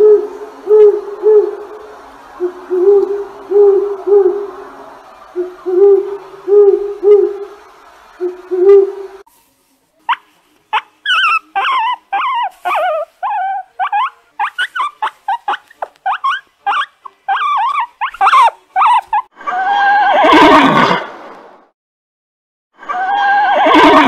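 An owl hoots in short runs of about three low hoots each. Then a guinea pig gives a quick series of high squeaks and chirps, several a second. Near the end a horse whinnies twice, each whinny lasting about two seconds.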